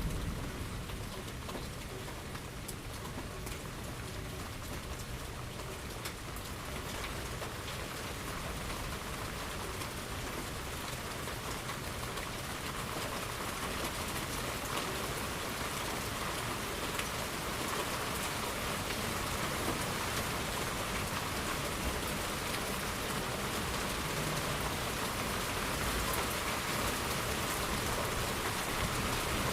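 Steady rain falling and pattering on the ground, a continuous even hiss that grows slowly louder.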